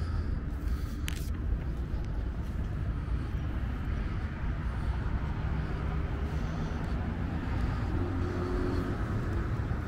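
City street ambience: the steady rumble of passing road traffic.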